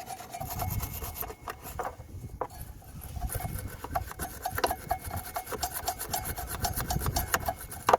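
Wire brush scrubbing brake dust off the pad runners of a Kawasaki J125 rear brake caliper: quick, uneven rasping strokes, several a second.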